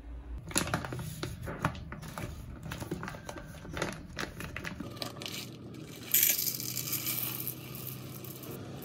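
Plastic bag of Arborio rice crinkling and rustling as it is opened and handled, then the dry rice pouring into a plastic measuring cup with a loud rushing hiss about six seconds in that tapers off.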